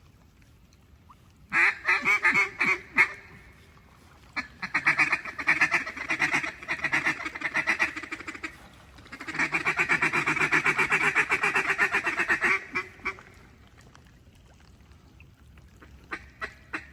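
Mallard duck calls blown by hunters in three runs of fast, pulsing quacks and chatter, each lasting a few seconds with short pauses between, to draw ducks in over the timber. The first run starts about a second and a half in, and the calling stops a few seconds before the end.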